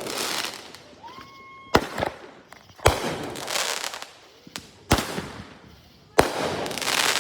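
Fireworks going off in quick succession: four sharp bangs a second or two apart, each trailing a crackling hiss, with a short rising whistle just before one of them.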